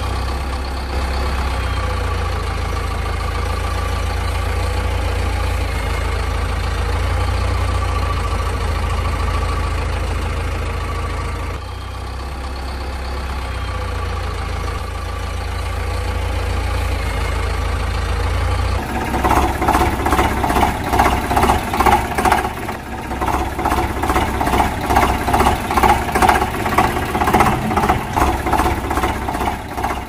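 Vehicle engine sound, running steadily with a low rumble for most of the time and dipping briefly partway through. About two-thirds of the way in, it changes to a rhythmic, pulsing engine beat.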